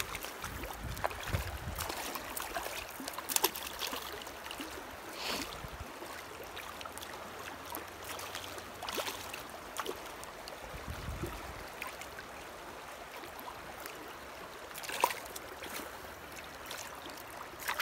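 Shallow river water running over stones, with now and then a short sharp sound, the loudest a little over three seconds in and near fifteen seconds.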